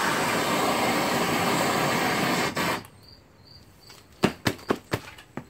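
Bernzomatic hand torch flame hissing steadily, then shut off abruptly about two and a half seconds in, followed by a few sharp clicks.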